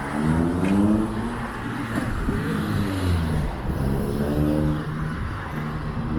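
Road traffic: motor vehicle engines accelerating past, their pitch rising several times over a steady traffic hum.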